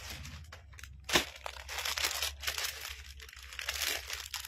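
Clear plastic garment packaging crinkling and rustling as it is handled, with one sharp click about a second in.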